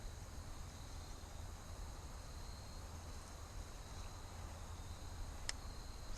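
Insects trilling steadily in two high tones over a low rumble, with one sharp click near the end.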